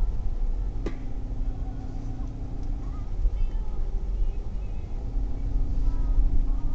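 Hyundai Tucson driving on a forest track: a steady low rumble of engine and tyres, with a sharp click about a second in.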